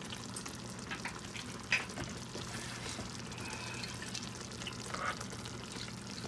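Chicken korma in a thick cashew-cream gravy sizzling softly in the pan, with a few light clicks of stirring.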